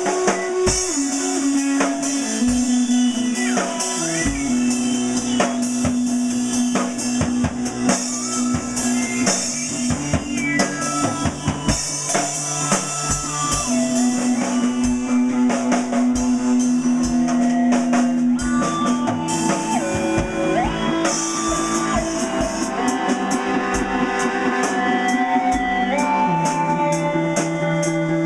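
Band music with a drum kit keeping a steady beat under sustained guitar and bass notes.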